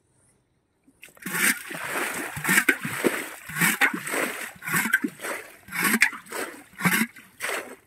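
Water and mud splashing in a shallow pond: a run of about a dozen irregular splashes, starting about a second in and cutting off just before the end.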